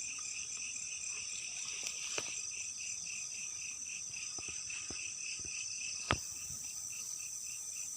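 Night-time chorus of crickets chirping steadily, one pulsing at about four chirps a second over a continuous high trill. A few faint clicks, and one sharper click about six seconds in.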